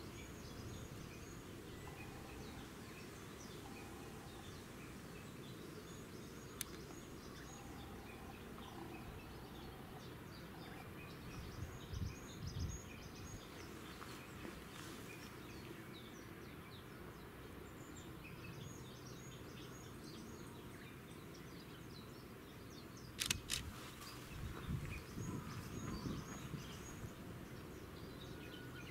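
Faint outdoor ambience: small birds repeat short high chirping phrases every few seconds over a steady low rumble. There are a few sharp knocks, the loudest about 23 seconds in.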